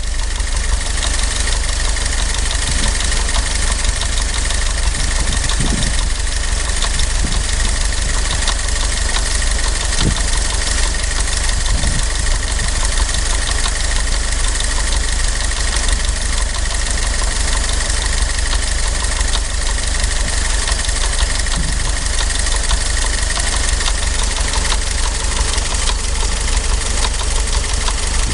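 1943 Willys MB's four-cylinder flathead engine idling steadily with an engine knock.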